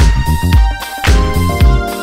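Background music with a steady, upbeat dance beat, about two beats a second.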